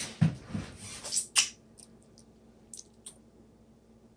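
Handling noises: two soft knocks, then two quick scraping rustles just over a second in, followed by a few faint clicks.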